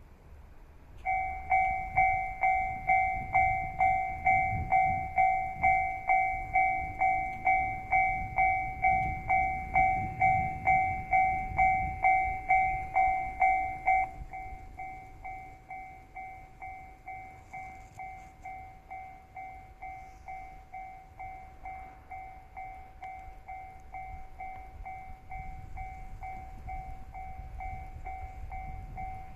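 Japanese railway level-crossing warning bell ringing in a steady two-tone beat, about two strikes a second, starting about a second in. It is loud until about halfway, then keeps ringing at a lower volume. A low rumble runs under the first half.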